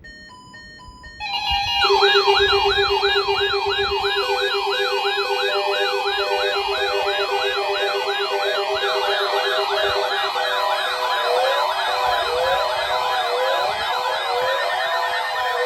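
Electronic emergency-alert siren tones: a few short beeps, then many overlapping electronic wails sweeping quickly up and down, a couple of sweeps a second, over a steady pulsing low tone that stops about two-thirds of the way through, with more sweeping tones layered in toward the end.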